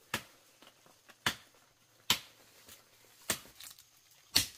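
A hoe striking into soil and roots five times, about a second apart, digging out a wild yam tuber.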